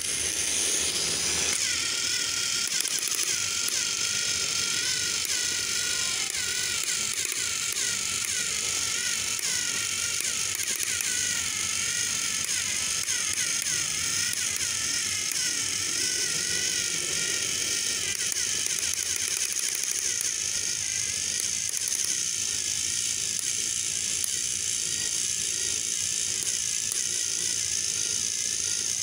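Battery-powered TrackMaster toy train whirring steadily as its small electric motor and plastic gears drive it along plastic track. The whine wavers up and down in pitch.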